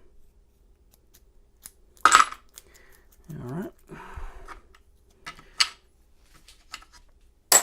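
Small metal padlock parts clinking and clicking together as a Master Lock 230 is handled for reassembly: a few separate sharp clicks, the loudest about two seconds in and two more close together later.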